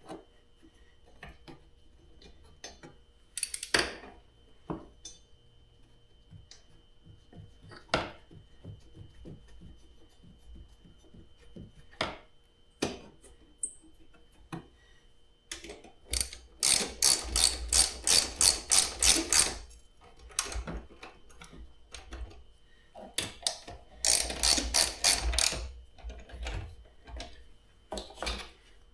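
Socket ratchet wrench clicking in quick even strokes, about four or five clicks a second, in two runs in the second half while a bolt is driven. Scattered light knocks of parts and tools come before them.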